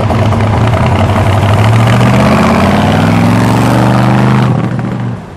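Corvette concept car's V8 engine accelerating hard, its pitch climbing steadily for several seconds. About four and a half seconds in, the sound falls away quickly.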